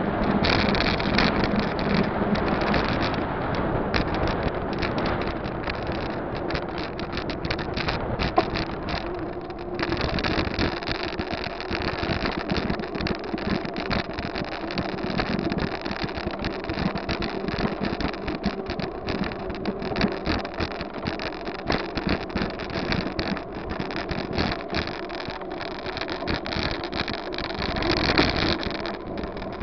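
Wind buffeting the microphone of a camera on a moving bicycle: a continuous, unsteady rushing noise.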